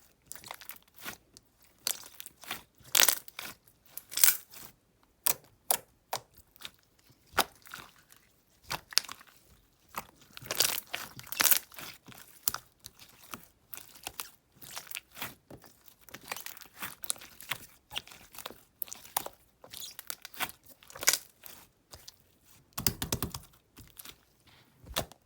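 Clear slime, thinned with water, being pressed, stretched and folded by hand, giving irregular sticky pops and crackles. Near the end comes a longer squelching burst.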